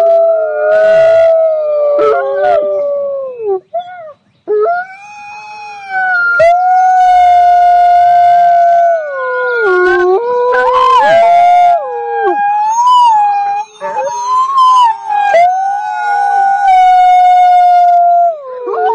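Wolf howling: long howls held at a steady pitch, gliding up and down at their ends, with a short break about four seconds in. A second, lower howl overlaps at times, as of two wolves howling together.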